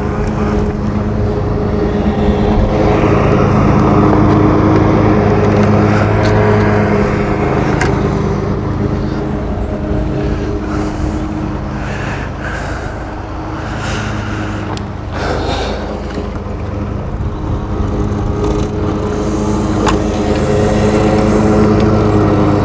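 Lawn mower engine running steadily nearby, louder about a third of the way in and again near the end, then fainter in between. A few sharp clicks are heard over it.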